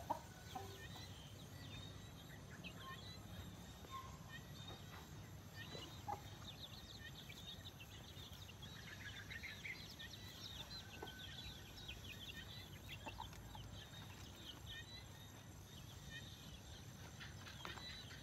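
Quiet rural yard with chickens clucking now and then, louder at the very start and again around six seconds in. Many faint short high chirps run throughout over a low steady rumble.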